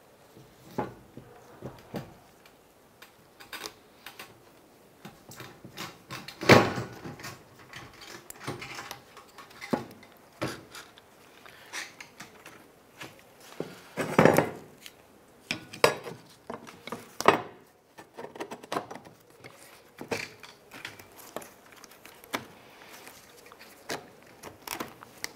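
Plastic fuel pump module being pressed and worked down by hand into the fuel tank's opening: scattered clicks, scrapes and knocks of plastic against the tank, the loudest about six and a half seconds in and again about fourteen seconds in.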